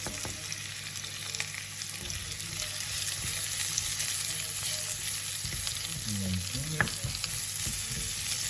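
Thinly sliced onions sizzling as they fry in hot oil in a pan, a steady hiss. About seven seconds in there is a sharp click.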